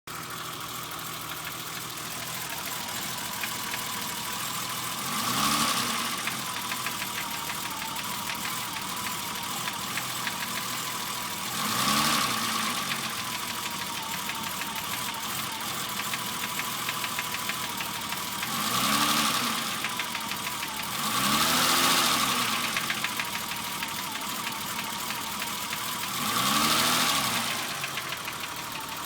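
BMW E30 engine idling with a rapid knock or tap, blipped five times, its pitch rising and falling with each short rev. The owner can't tell whether it is rod knock, piston slap or a bearing, and three shops could not determine it either.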